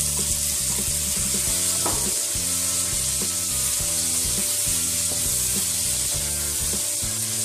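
Boiled fusilli pasta sizzling in hot oil with chopped tomatoes in a kadai, stirred and tossed with a wooden spatula.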